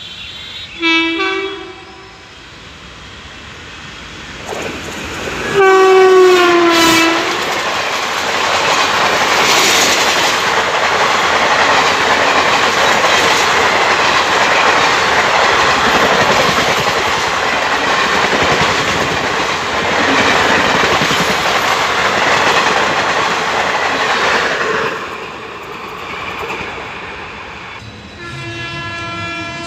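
Indian Railways express of ICF coaches running through a station at speed: the locomotive horn sounds briefly about a second in, then gives a long blast that drops in pitch as it passes. The coaches' wheels follow with a loud rushing and clattering over the rail joints that fades out near the end, where another train's horn sounds steadily.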